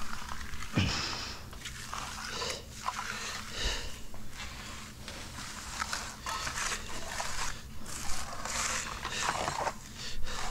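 Horsehair-and-nylon concrete finishing broom dragged in repeated strokes across wet concrete, its bristles scraping the surface to give a fresh slab a broom finish.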